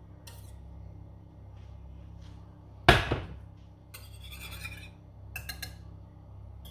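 Kitchen items being handled during food prep: one sharp knock about three seconds in, then a short rustle and a few quick clicks, over a steady low hum.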